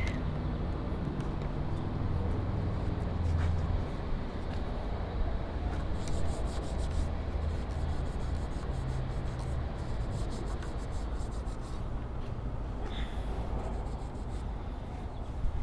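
Rapid hand rubbing and scrubbing strokes on a bicycle part, coming in clusters about six seconds in and again around ten seconds, over a steady low rumble.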